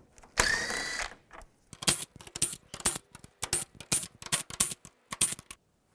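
Cordless driver with a 10 mm socket spinning out a bolt in a short whirring burst with a steady whine. A run of sharp metallic clicks and clinks follows.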